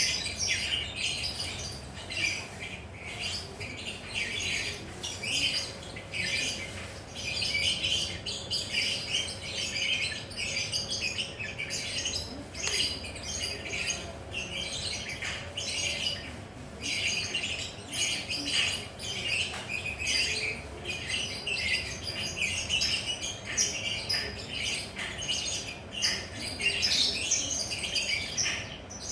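Lovebird in full 'ngekek' song: a long, rapid, high-pitched chattering string of squawks and chirps, broken only by brief pauses.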